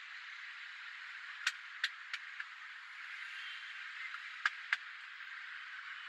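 Sharp joint cracks as the arm is stretched upward: a quick run of about four pops about one and a half seconds in, then two more about three seconds later, over a steady hiss.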